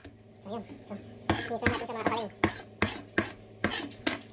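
Knife cutting and scraping a whole fish on a wooden cutting board, with irregular sharp knocks of the blade on the board that come about every half second in the second half.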